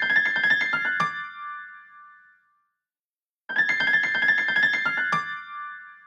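An iPad mini 4 ringtone: a quick run of piano-like notes ending on a held note that rings out, played twice with a short silence between.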